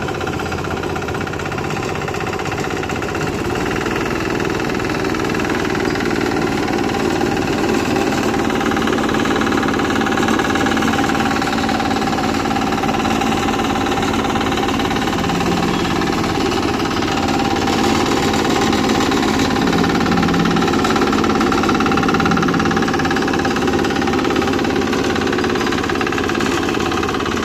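Engine of a mini road roller running steadily, a dense, even mechanical chatter.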